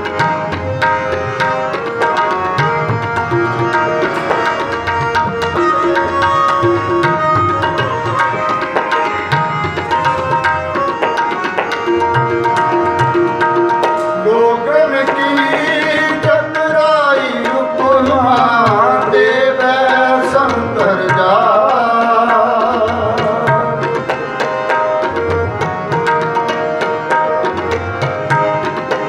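Kirtan accompaniment: harmoniums hold sustained chords while a tabla plays a steady rhythmic pattern. About halfway through, a man's voice joins with a long, ornamented sung passage that slides up and down in pitch for several seconds.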